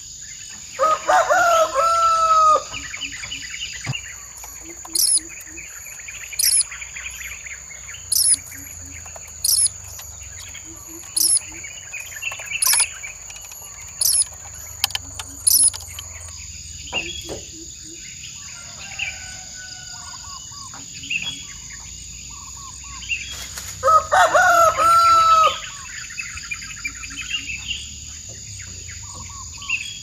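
A rooster crowing twice, about a second in and again some twenty seconds later, over a steady high drone of insects. In between, a bird gives a short sharp chirp about every second and a half, and soft low clucks come now and then.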